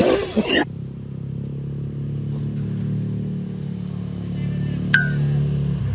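A motor vehicle engine running steadily, its low hum growing slightly louder, after a short loud noise at the very start and with a sharp click about five seconds in.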